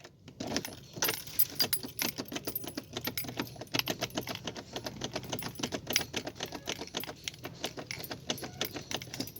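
Car key being jiggled and worked back and forth in a 1995 Toyota Corolla's sticking ignition lock cylinder, freshly sprayed with WD-40. The keys on the ring jangle in quick, irregular clicks and rattles from about half a second in; the cylinder still won't turn.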